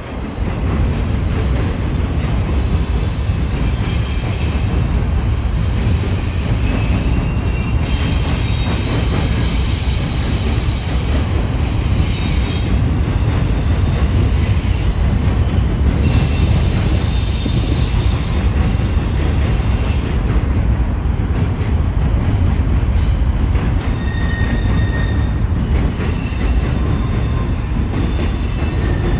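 Double-stack intermodal freight cars rolling past with a steady heavy rumble. High-pitched wheel squeals come and go over it.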